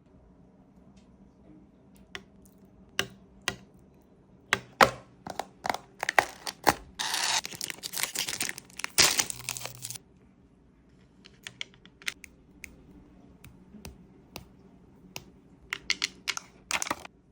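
Close-miked ASMR handling sounds: scattered sharp clicks and taps, with a dense crinkling, tearing noise lasting about three seconds in the middle.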